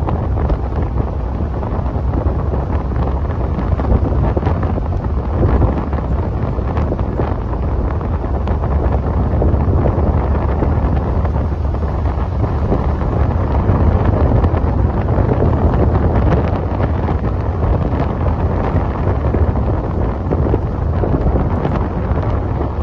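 Rushing water from a mountain river or cascade, a steady, dense rush with a heavy low rumble and no breaks.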